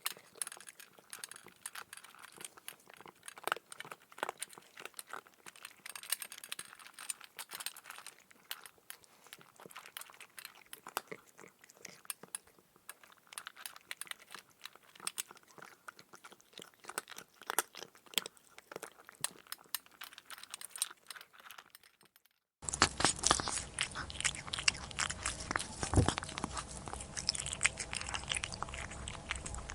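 A cat chewing and crunching food close to the microphone: many quick irregular crunches. About 22 seconds in it breaks off for a moment and a louder chewing recording begins, with a low steady hum behind it.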